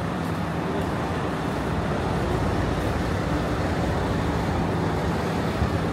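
Steady road-traffic noise on a busy city street, with a low engine hum.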